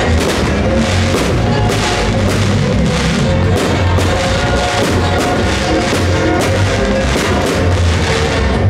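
Music with a steady drum beat, at a constant loud level.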